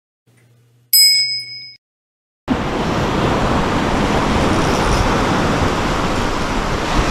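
A bright chime rings once for about a second. About two and a half seconds in, the steady wash of sea surf breaking on a rocky shore begins.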